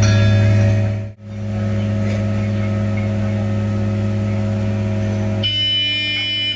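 Diesel engine of a railway breakdown crane running steadily, a low, even hum. A high, steady tone joins it about five and a half seconds in.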